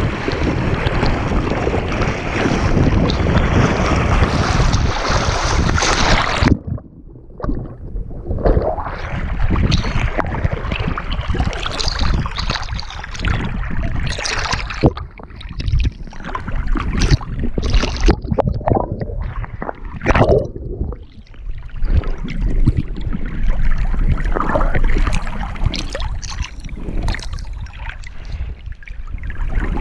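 Water splashing and sloshing right at the microphone of a camera strapped to a swimming golden retriever's back. A dense, continuous rush of water for the first six seconds or so cuts off suddenly, then irregular splashes and gurgling surges as waves wash over and off the camera.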